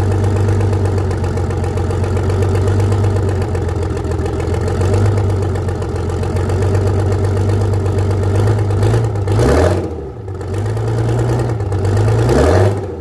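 Detroit Diesel 6-71 two-stroke diesel running steadily while warming up after a cold start, then revved up briefly twice near the end.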